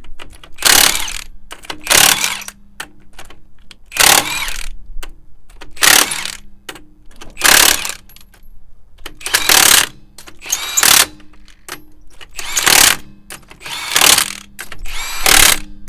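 A wrench turning steel lug nuts through a Merrick Tool cam lock socket: about eleven short, loud bursts, roughly one every second and a half.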